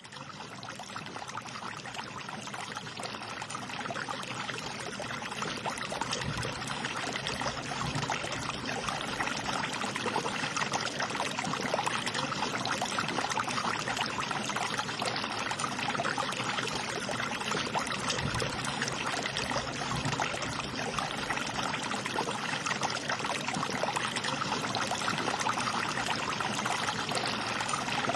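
Steady rush of running water, a little louder over the first several seconds.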